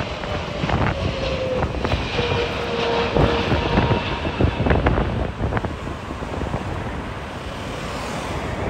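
Boeing 777 jet airliner passing low on its landing approach, its twin turbofan engines giving a steady rumble with a whine that slowly falls in pitch over the first few seconds. Wind buffets the microphone in short, irregular thumps throughout.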